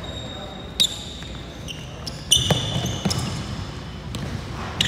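Basketball play on a hardwood gym court: sneakers squeaking several times at a few different high pitches, with the knock of the ball bouncing. The loudest squeak comes a little before the middle and lasts most of a second.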